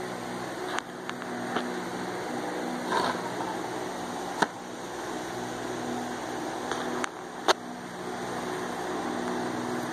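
A steady mechanical hum, like a running fan or motor, with about seven short sharp clicks scattered through it.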